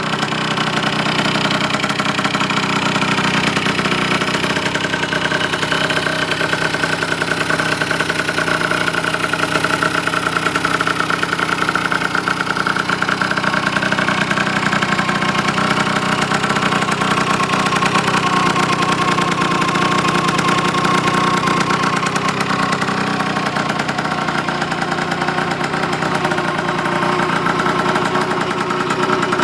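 Two-stroke 50cc scooter engine, a 2-in-1 build from Yamaha 3KJ and Honda TA01E parts, idling steadily after starting, its pitch drifting a little up and down.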